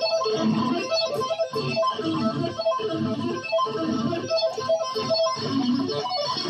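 Electric guitar shredding with fast tapped runs, played live with a band and heard as a club recording.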